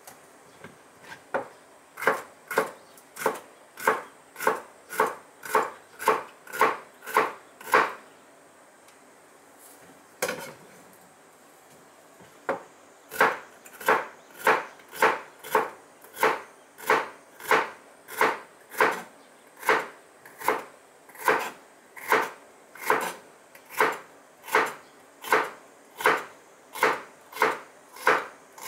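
Kitchen knife slicing bitter melon on a cutting board: sharp, even chops about twice a second, stopping for a few seconds in the middle and then resuming at the same pace.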